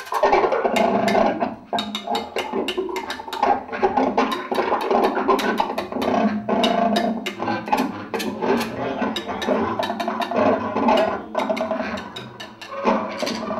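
Free improvised music: rapid, irregular clattering strikes on drums, cymbals and homemade percussion over sustained bass clarinet tones. The playing thins out briefly near the end.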